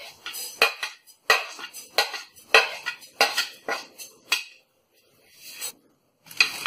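A spoon scraping and tapping against a plate in quick strokes, about two a second, as sesame and cumin seeds are pushed off into a hot pan for dry-roasting; the strokes stop about four and a half seconds in, with a softer one and then a last tap near the end.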